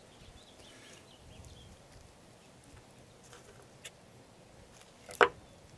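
Quiet handling sounds of a knife trimming a raw chicken drumstick over a wooden cutting board, a few faint ticks, then one sharp knock about five seconds in.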